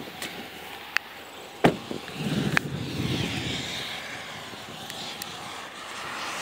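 Sharp knocks and clunks from a truck's door as people climb out, the loudest about one and a half seconds in, followed by a short low rumble and a steady rushing noise that grows toward the end.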